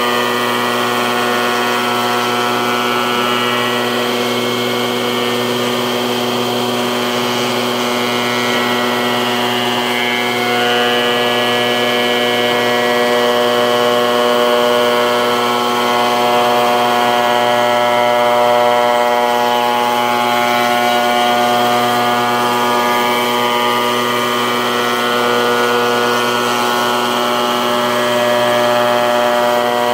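Shop Fox shaper running steadily with a constant whine as its cutter mills a curved, full-round wood molding, the pitch shifting slightly a few times as the cut loads it.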